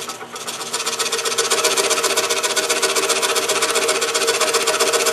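DeWalt scroll saw running, its fine blade stroking rapidly up and down as it cuts through thin wood, a steady even rasp. It gets louder over the first second, then holds level.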